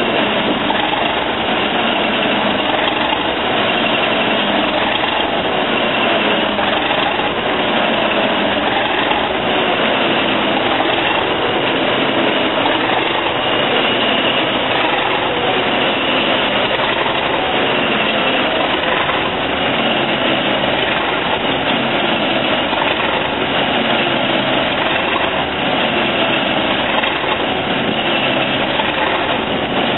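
Class 37 diesel locomotive's English Electric V12 engine running steadily, with a steady high whine over the engine noise.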